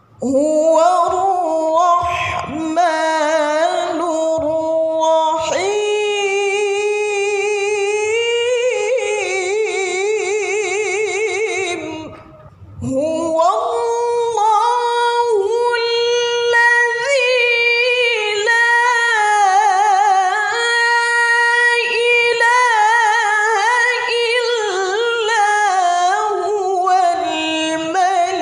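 A woman's voice reciting the Qur'an in melodic maqam style, holding long ornamented notes with a wavering vibrato. She breaks off briefly for breath about twelve seconds in, then carries on.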